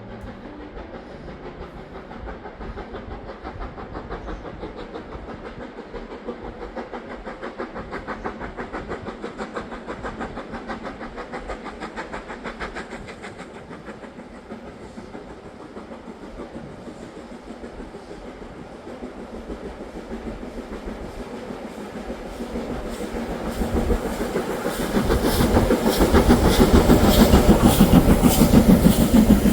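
Steam train running along the line, with a fast, even rhythmic beat; it grows much louder over the last several seconds.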